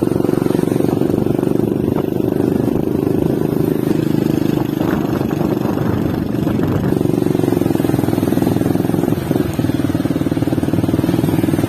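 A motor vehicle's engine running steadily, with a slight dip in level about nine seconds in.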